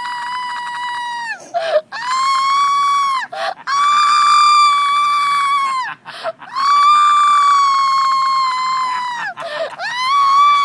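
A person's long, high-pitched screams, about five of them, each held on a steady pitch for one to three seconds with short breaks between, voicing the witch as she burns.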